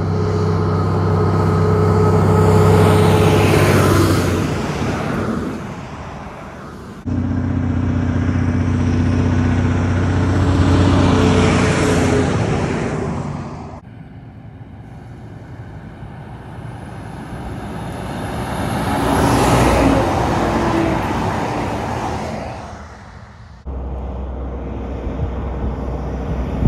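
Heavy trucks and road trains passing close by on a highway one after another, each engine swelling loud as it goes past, with tyre and wind rush. Three pass, the sound cutting abruptly between them, and a fourth is approaching near the end.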